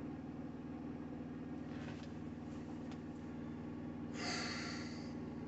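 Steady low hum of a semi truck's engine idling, heard inside the cab, with a short exhale through the nose about four seconds in.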